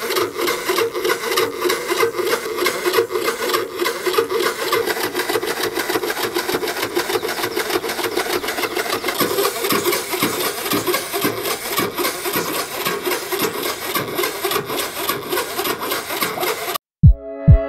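Mini 12-volt air compressor running with a steady, rapid buzzing rattle as it pumps air into the water jar. The sound cuts off abruptly near the end.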